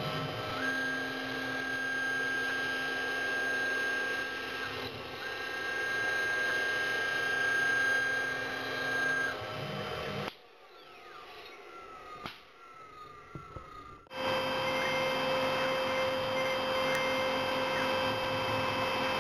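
CNC milling machine running with a steady whine made of fixed tones, the cut starting and stopping twice in the first half. About ten seconds in it drops to a much quieter stretch for about four seconds, then the machine sound starts again with a different pitch.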